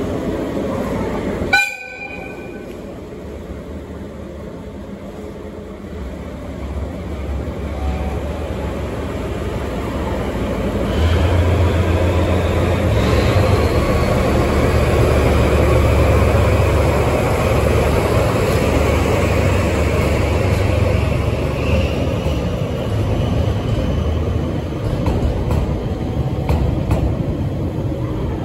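A JR DE10 diesel-hydraulic locomotive gives one short horn toot about two seconds in. Then its diesel engine runs with a low rumble that grows louder as it comes close and passes slowly, and the rolling of the coupled KiHa 261 series cars follows near the end.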